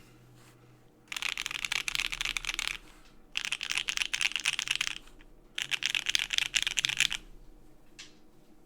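Mechanical keyboard with lubed C3 Banana Split linear switches on an FR4 plate in an aluminium case, under PBT keycaps, being typed on fast. There are three bursts of rapid keystrokes, each about a second and a half long with short pauses between, and one last keystroke near the end.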